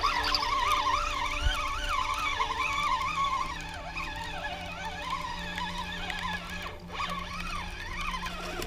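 Spinning reel being cranked to retrieve line, its gears giving a thin buzzing whine that wavers up and down in pitch as the cranking speed changes, easing off somewhat after the first few seconds.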